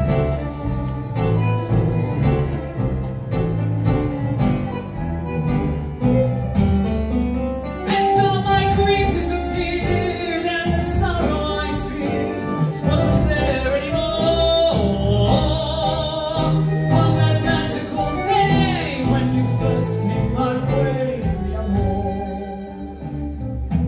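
Orchestral stage-show music led by strings, with wavering melody lines over a continuous bass.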